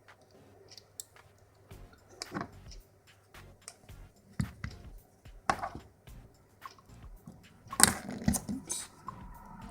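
Small metal parts of a pin-tumbler lock clicking and scraping as it is taken apart by hand, a circlip being worked off the plug, with a louder clatter of clicks about eight seconds in.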